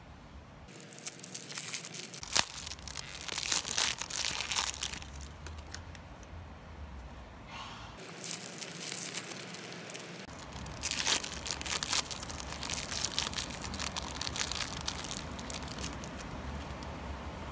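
Crinkling and rustling of the glossy plastic wrapper bags from an L.O.L. Surprise ball as they are handled and torn open, in irregular spells that are loudest a few seconds in and again from about eleven seconds.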